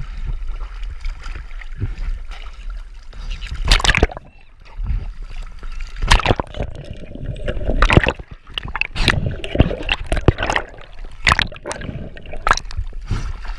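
Seawater splashing and sloshing at the surface in irregular bursts as a freediver churns the water beside a float.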